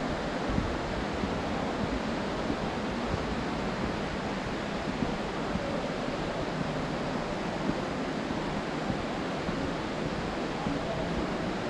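Steady rush of falling water, a constant even hiss, with a few faint taps of footsteps on stone steps.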